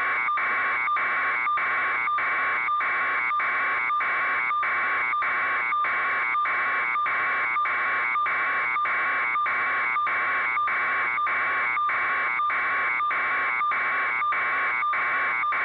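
A steady electronic buzz, broken by brief regular dropouts about twice a second.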